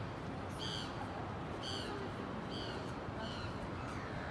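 A bird giving short, sharp calls about once a second at uneven intervals, each call dropping slightly in pitch, over a steady low background rumble.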